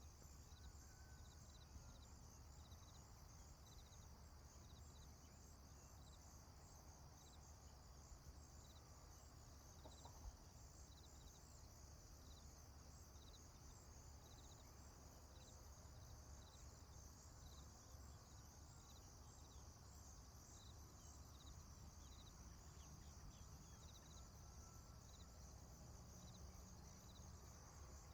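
Faint chorus of crickets chirping in a steady, even rhythm, over a low steady rumble.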